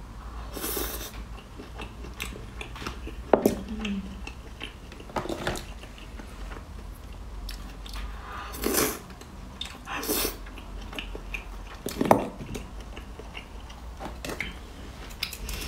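Eating grilled oysters on the half shell: the oyster is sucked off the shell in a short noisy burst about every two seconds, with chewing and sharp clicks of chopsticks and shell in between.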